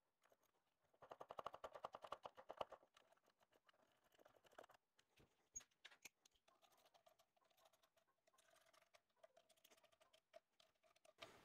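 Near silence, with faint clicks from small bolts and hardware being handled: a quick run of light clicks about a second in, lasting under two seconds, then a few scattered ticks.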